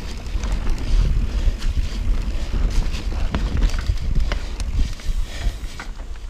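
Wind buffeting the action camera's microphone as a mountain bike rolls fast down a dirt singletrack, with tyre noise on the dirt and scattered clicks and rattles from the bike over roots and stones.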